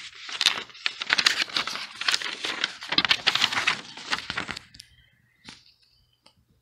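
Paper instruction sheet rustling and crinkling as it is handled and turned over, stopping after about five seconds, followed by a few faint taps.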